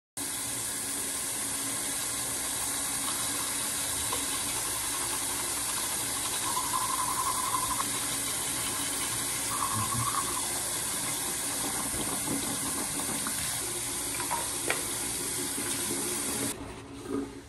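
Bathroom sink faucet running steadily into the basin, shut off near the end.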